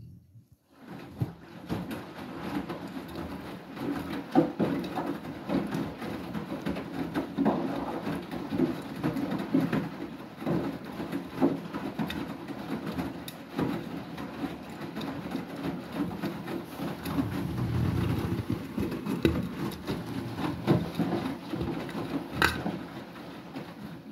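Beko WTK104121W washing machine in its main wash, starting about a second in: the drum turns a small wet load, with a steady churning and many light knocks and thuds from the laundry tumbling.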